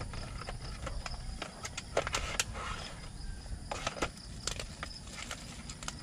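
Irregular light clicks and taps of a small folding metal stand being handled and set up on a cloth-covered table, a few of them in quick clusters, over a steady outdoor background with a faint high insect-like tone.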